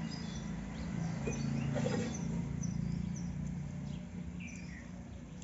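Small birds chirping with short high calls, over a low steady rumble that is strongest in the first few seconds and then fades.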